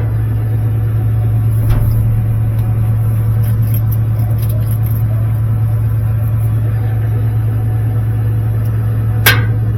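A steady low mechanical hum runs throughout. A faint click comes about two seconds in, and a single sharp snip near the end as wire cutters cut the burnt connector off the dryer's heating-element wire.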